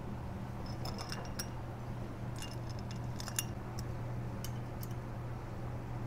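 Light metallic clicks and clinks of small engine parts and wire being handled as the generator lead is bent into place on the magneto side of a bike engine, in scattered clusters about one second, three seconds and four and a half seconds in. A steady low hum runs underneath.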